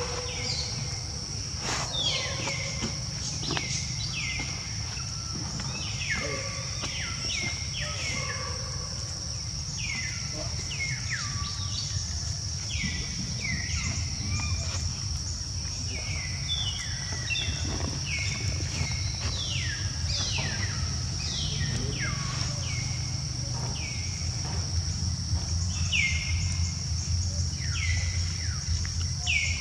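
Outdoor ambience: a steady high-pitched insect drone over a low rumble, with many short chirps that fall in pitch, coming about once a second.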